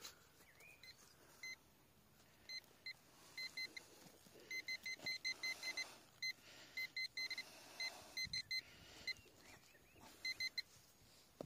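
Handheld metal-detecting pinpointer giving short high beeps, singly and in quick runs that speed up about halfway through as the probe is worked through loose soil in the hole, signalling a small metal target, which turns out to be a washer. Faint rustle of soil under the probe.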